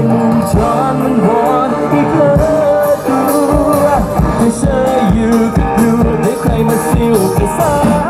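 Male singer singing a pop song into a handheld microphone, backed by a live band with keyboards, all amplified through the stage PA. A steady drum beat comes in about two and a half seconds in.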